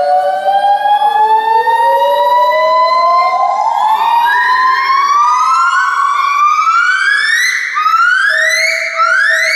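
A monkey calling: a series of loud whooping notes, each rising in pitch. The first are long and slow; they become shorter, higher and quicker toward the end.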